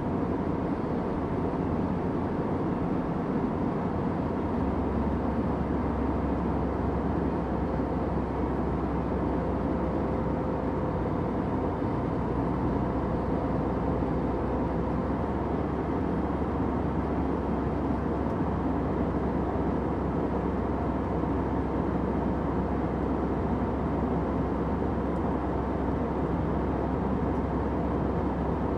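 Steady airliner cabin noise in flight: an even, deep rumble and hiss of engines and rushing air, with a faint low hum that grows slightly stronger about five seconds in.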